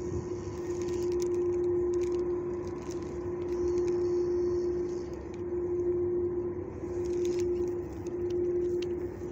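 Steady machine hum with one constant tone over a low rumble, swelling and easing slightly about every two seconds, with a few faint clicks over it.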